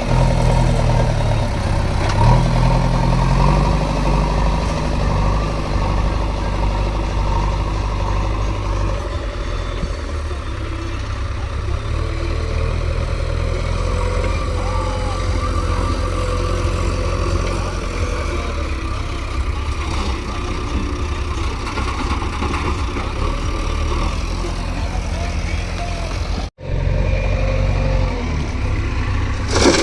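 Diesel engines of a JCB 3DX backhoe loader and tractors running steadily under work while mud is loaded, with a short cut in the sound near the end.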